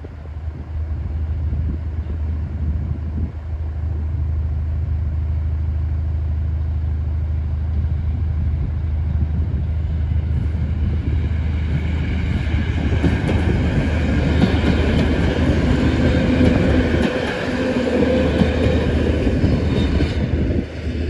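Red POLREGIO electric multiple unit approaching and passing on the electrified line. It grows louder from about halfway through, with wheel-on-rail rolling noise and high running tones, loudest a few seconds before the end.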